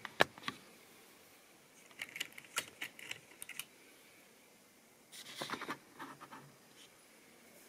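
Light clicking and rattling of Tri-ang model railway stock on its track, in short irregular clusters: a sharp click just after the start, a run of clicks about two seconds in, and a longer rattle about five seconds in.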